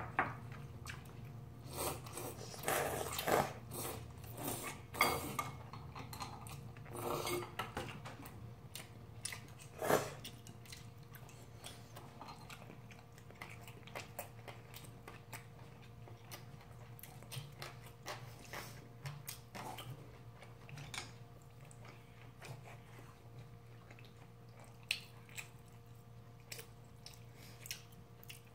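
Two people eating ramyun noodles and gimbap: chewing and slurping, with chopsticks clicking against bowls. The sounds come thick in the first ten seconds, then thin out to scattered clicks and chewing over a steady low hum.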